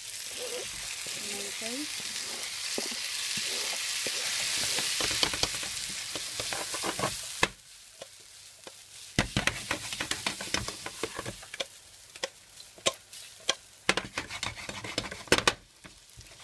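Chopped tomato sizzling in a pan of frying onion and garlic: a loud sizzle that grows for several seconds, then drops off suddenly about seven seconds in. After that a spoon stirs the pan, with quick clicks and knocks against the metal over a quieter sizzle.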